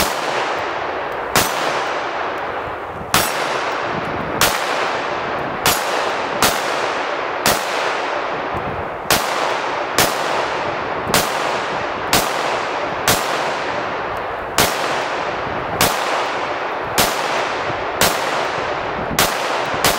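Smith & Wesson .22 Magnum semi-automatic pistol firing a steady string of about eighteen shots, roughly one a second, each crack followed by a long fading echo. The pistol is cycling Armscor .22 WMR rounds with no jams or misfeeds.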